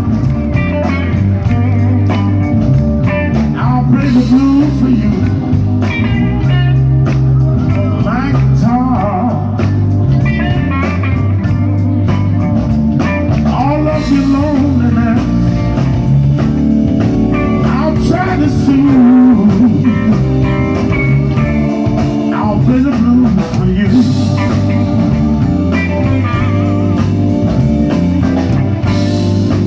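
Live electric blues band playing a slow blues, with a lead electric guitar bending notes over bass and drums.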